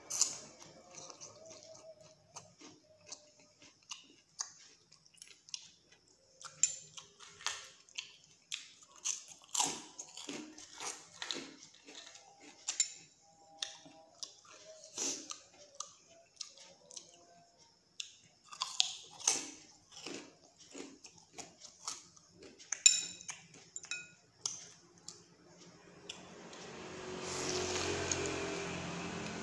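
Close-up eating sounds of spicy instant noodle soup: noodles slurped and chewed with wet smacks, in a long irregular run. Near the end a motor vehicle's engine noise swells up and covers it.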